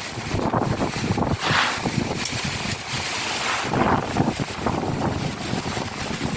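Strong wind gusting in a rainstorm, buffeting the microphone, with swells of rushing noise about a second and a half in and again near four seconds.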